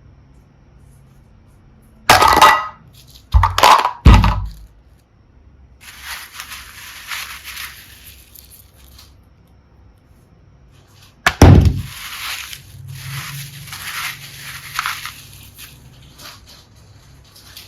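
Slime being handled and pressed: four sharp, loud pops, three in the first few seconds and one near the middle, with soft crackling squishes between them.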